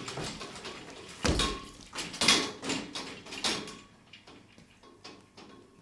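A run of knocks, thumps and scraping noises, the loudest a deep thump about a second in and another about two seconds in, thinning out after four seconds.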